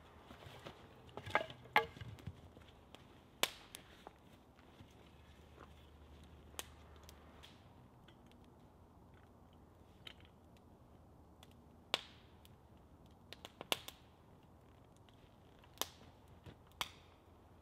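Open wood fire crackling, with scattered sharp pops spaced a few seconds apart and a quick cluster of knocks about a second and a half in.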